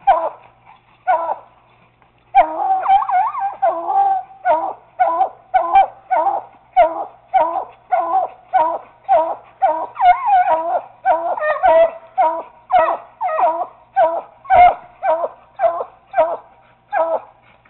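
Coonhounds barking treed at a raccoon up a tree: a chop bark, the hound's signal of game treed. After a pause of about two seconds comes a quick run of barks, then a steady series at about two barks a second.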